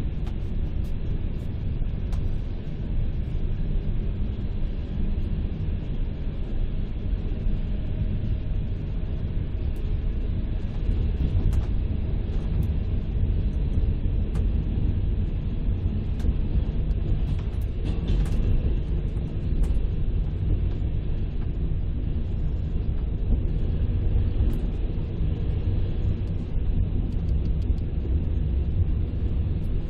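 Passenger train running, heard from inside the carriage: a steady low rumble with a few scattered faint clicks.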